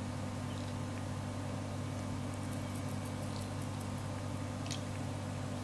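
Quiet room tone: a steady low hum with a few faint light ticks in the middle and near the end.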